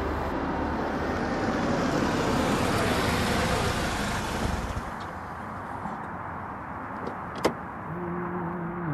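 Chevrolet SUV pulling in and coming to a stop, its engine and tyre noise fading out about five seconds in. A single sharp click follows about two and a half seconds later, and music comes in near the end.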